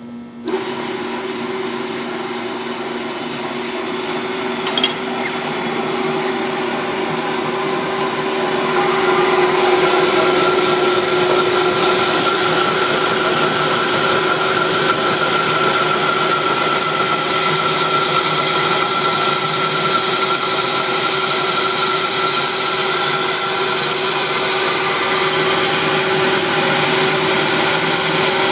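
Union Process attritor (stirred ball mill) starting up about half a second in and running with a steady hum, its agitator churning grinding media in the tank with a dense hiss. It grows louder about nine seconds in and then runs on steadily, with a single short click near five seconds.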